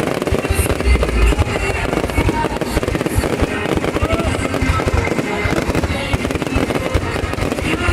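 Aerial fireworks going off in rapid succession, a dense crackle of small bursts with a deep boom about a second in, over music.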